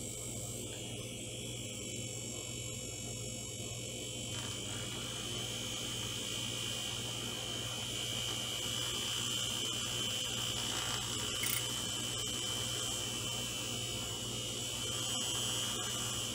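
Aerolatte battery-powered handheld milk frother running with a steady buzz, its whisk spinning in a glass mug to aerate hot cocoa made with fat-free half and half.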